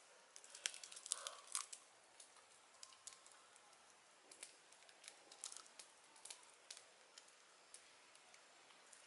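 Faint, scattered crisp clicks and crackles, densest about a second in, from lamtoro (petai cina) pods being split by hand and the seeds eaten.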